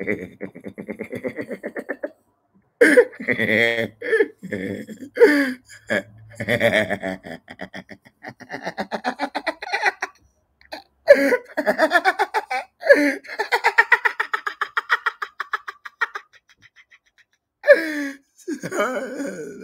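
A man laughing hard in several long bouts of rapid pulsed laughter, broken by brief pauses for breath.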